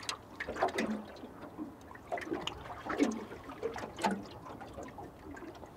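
Water lapping and slapping irregularly against the hull of a small drifting boat, in short uneven splashes a second or so apart.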